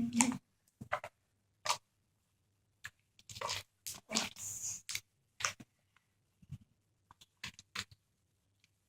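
Homemade slime being squeezed and popped in the hands: a dozen or so scattered short pops and clicks as air pockets burst, with a few longer squelches about halfway through.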